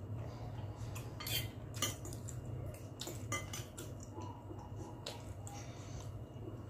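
Metal spoon and fork clinking and scraping against a glass bowl of noodle soup: a string of light, irregular clinks. A steady low hum runs underneath.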